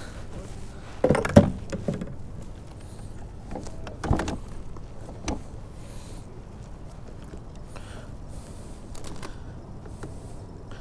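Knocks and clatter of fishing gear and a landing net being handled on a plastic kayak deck: a cluster of knocks about a second in, then single knocks around four and five seconds.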